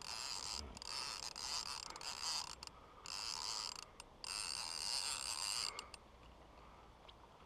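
Baitcasting fishing reel being cranked to wind in line, a steady mechanical whir in three spells with short breaks between them, dying away near the end.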